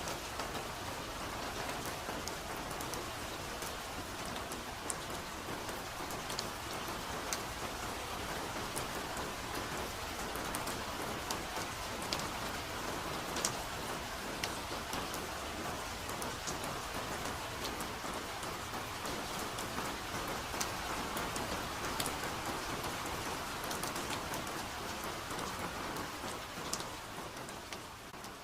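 Soft, steady rain, with many separate drops ticking close by over the even hiss of the downpour. The level begins to fall near the end.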